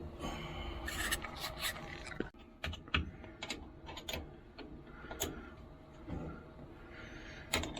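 Irregular metal clicks and scrapes from a hand wrench being worked to tighten a nut on a battery terminal connection.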